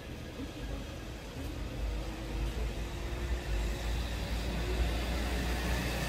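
Low, steady rumble of a vehicle engine running nearby, with a faint hum, growing louder from about two seconds in.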